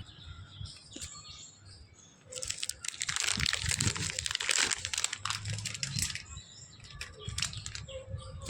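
Crinkling and rustling with many small clicks, densest from about two seconds in to six seconds, with scattered clicks after: handling and fitting a new plastic motor sensor on a washing machine.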